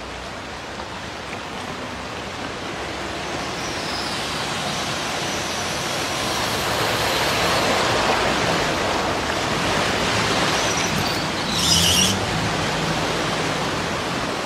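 Heavy rain on a flooded street while a car drives through the deep water, its wheels pushing up a rushing splash that swells and stays loud through the middle. A brief high-pitched sound stands out about twelve seconds in.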